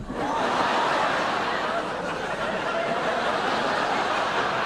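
Studio audience laughing, a dense crowd laugh that swells at the start and carries on.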